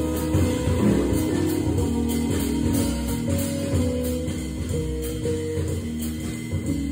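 Jazz organ trio playing live: electric guitar, organ with held chords over a low moving bass line, and drums with cymbal strikes.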